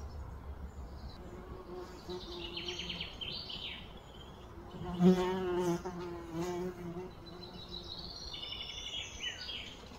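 An insect buzzing around, a low hum that wavers in pitch and swells loudest about halfway through. Short high chirping calls come twice, a couple of seconds in and near the end.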